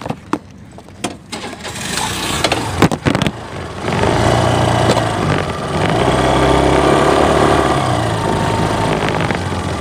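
Small motor scooter engines starting about three and a half seconds in, then running and pulling away, swelling about six seconds in. A few sharp clicks come before the engines start.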